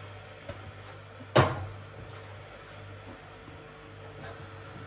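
A single sharp knock of a hard object set down in a kitchen, about a second and a half in, with a smaller click shortly before it, over a steady low hum.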